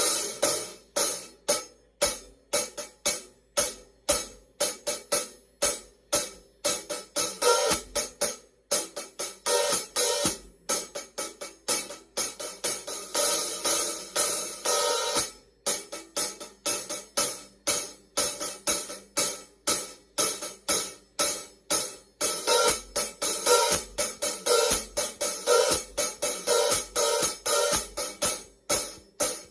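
Paiste 2002 15-inch Sound Edge hi-hat cymbals struck in a steady beat of about two strokes a second, each stroke a short, bright chick that dies away quickly. A few brief pauses break the beat, and some stretches have quicker, ringier strokes.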